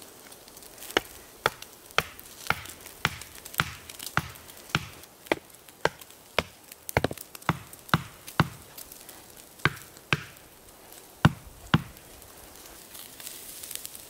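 Steady chopping with a blade into wood, about two sharp strokes a second, around twenty strokes in all. The last two strokes, near the end, are the loudest, and the chopping stops there.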